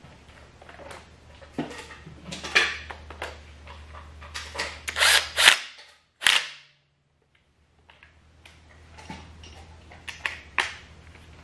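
Cordless impact wrench rattling in two short bursts about five and six seconds in, snugging a camshaft gear bolt lightly before final torque. Around them are sharp metallic clicks and knocks of the tool and parts being handled.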